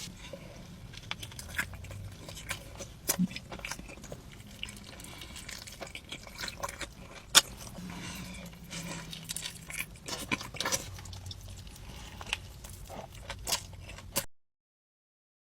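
Close-miked eating: a person chewing food with wet mouth sounds and many small sharp clicks and crunches. It cuts off abruptly to silence near the end.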